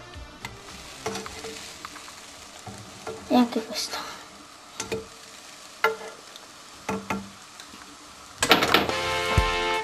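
Pancake batter frying in a pan with a quiet, steady sizzle, broken by a few short knocks and scrapes of a utensil against the pan. Music starts near the end.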